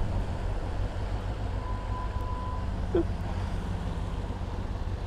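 Kawasaki ZX6R inline-four engine running at low revs, a steady low rumble mixed with wind noise on the microphone.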